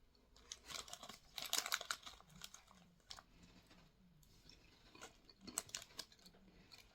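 Close-miked chewing and crunching of small white-chocolate-coated puffed wheat snacks: irregular crisp crackles, densest in the first two seconds, then sparser.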